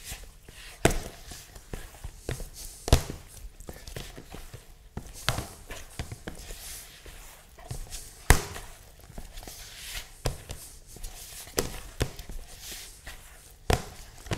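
Hands kneading a stiff, clay-like rye dough in a plastic bowl: soft rubbing and pressing with irregular thumps every couple of seconds, the loudest about three and eight seconds in.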